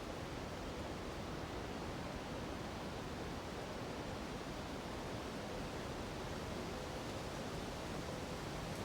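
A nearby mountain river and wind through the treetops together make a steady, even rush with no distinct events.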